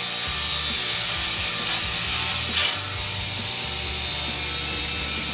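Delta table saw running and cutting through a long strip of 1/2-inch pine plywood, a steady hiss of the blade in the wood with the saw's motor hum underneath. A brief louder burst about two and a half seconds in.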